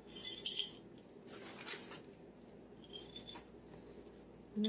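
Semi-sweet chocolate chips being poured and spread by hand in a parchment-lined baking pan: three or four short rustling, lightly clinking bursts.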